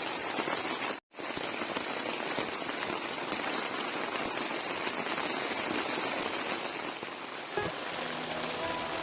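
Heavy rain falling steadily, an even hiss of rain on surfaces, broken by a brief cut to silence about a second in. Near the end, music begins faintly under the rain.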